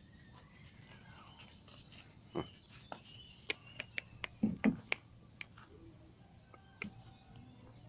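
A small black dog giving a few short yips about halfway through, among scattered sharp clicks.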